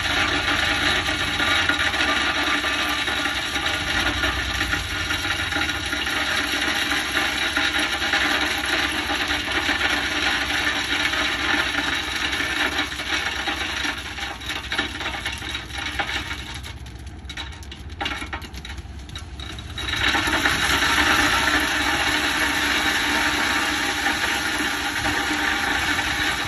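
Crushed rock pouring out of a dump truck's open tailgate onto pavement, a dense rattling clatter of stones over the truck's running engine. The flow thins for a few seconds about two-thirds of the way through, then comes back as heavy.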